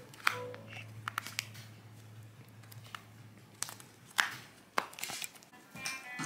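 Sharp clicks and knocks of vinyl LP sleeves clacking against each other as records are flipped through in a shop bin, a few at a time, over quiet background music.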